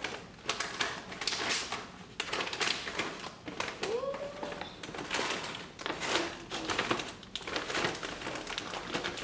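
A paper grocery bag rustling and crinkling as a hand rummages through it and the packages inside, in an irregular run of short scratchy rustles.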